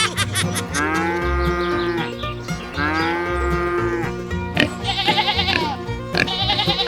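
Background music with farm-animal call sound effects laid over it: two long arching calls about a second each, then two shorter, high, quavering calls near the end.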